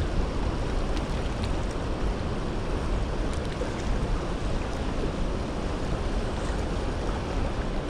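Steady rushing of a fast-flowing river, with a low wind rumble on the microphone.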